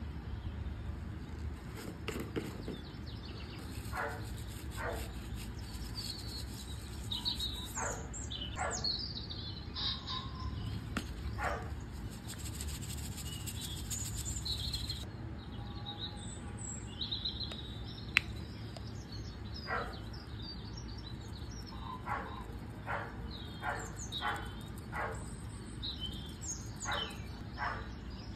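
Birds chirping and calling again and again over a steady low rumble of outdoor ambience, with one sharp click about two-thirds of the way through.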